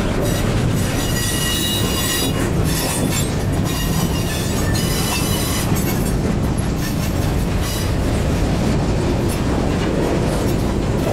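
Freight cars rolling past (double-stack container well cars, boxcars, then centerbeam flatcars): a steady rumble of steel wheels on rail, with a high-pitched wheel squeal through the first half that dies away about halfway through.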